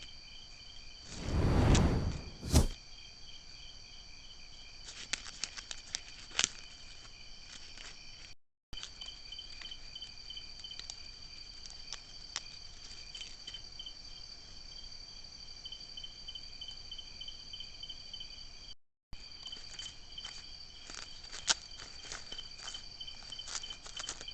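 A paca gnawing and cutting dry corn husks makes irregular crackling, crunching clicks against a steady chorus of night insects. A loud rushing swell comes about a second in, then a sharp knock, and the sound cuts out briefly twice.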